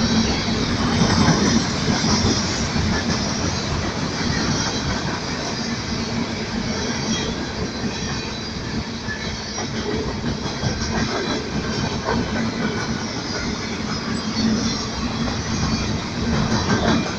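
Freight train cars rolling past on steel wheels over the rails, a steady loud rumble and clatter.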